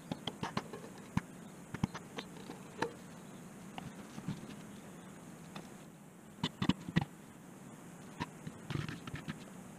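Scattered light clicks, taps and scrapes of a plastic syringe and a tubeless sealant bottle being handled on a wooden bench while sealant is drawn up into the syringe. A quick cluster of sharper clicks comes about six and a half seconds in, and another shortly before the end.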